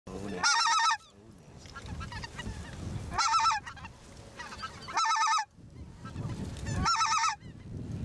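Specklebelly (greater white-fronted) geese calling: four loud, quavering multi-note yodels, each about half a second long and cut off sharply. Fainter calls of the flock and a low rumble of wind run between them.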